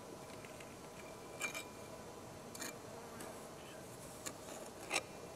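A garden trowel scraping and knocking in loose sand around a freshly poured aluminum casting: four short scrapes, the loudest near the end, over a faint steady hum.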